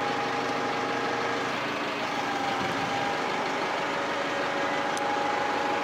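Lorry-mounted hydraulic crane lifting a heavy load, the truck's engine running steadily, with a steady whine over it.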